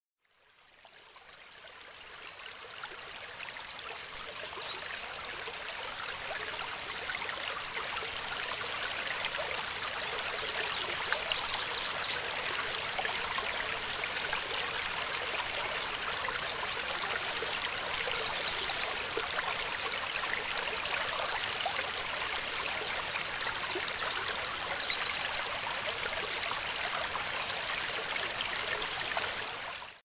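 Running water rushing and trickling steadily, fading in over the first few seconds.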